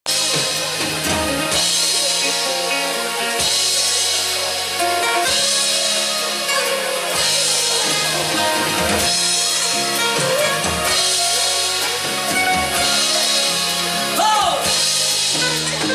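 Live band playing an up-tempo song on drum kit, electric guitars and keyboard, with cymbals and a steady bass line.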